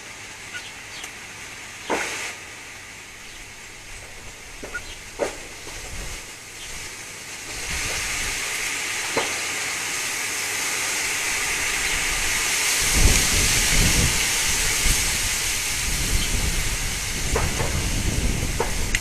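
Wind gusting through garden trees and shrubs, a rushing hiss that swells about halfway through and then buffets the microphone with low rumbling. A few sharp clicks sound in the first half.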